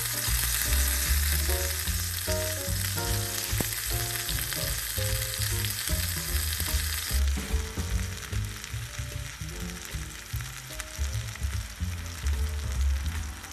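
Food frying in hot oil in a miniature pan, a steady sizzle that is louder for the first seven seconds or so and then quieter, with background music throughout.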